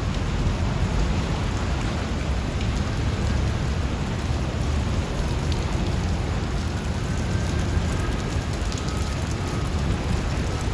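Steady rain falling, an even, continuous hiss of rainfall.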